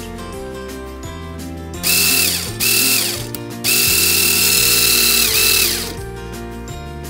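Electric motor driving a Tamiya 1/14-scale three-speed truck gearbox, run in three bursts (two short ones, then one of about two seconds), each a high whine of motor and gears that spins up quickly and winds down as it stops. Background music plays throughout.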